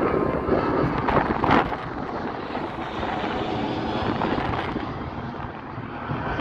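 Jet engines of a twin-engine airliner climbing out after takeoff: a steady jet roar that slowly fades as the plane moves away.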